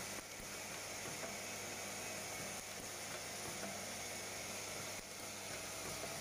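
Automatic tube chamfering machine running: electric drive motor and spindles turning with a steady hum and hiss, with faint clicks from the mechanism.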